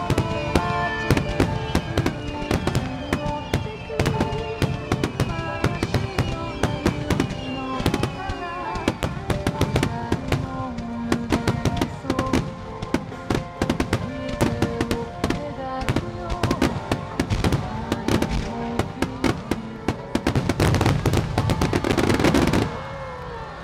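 Fireworks bursting and crackling in quick succession over accompanying music. About twenty seconds in they build to a dense barrage that stops abruptly near the end.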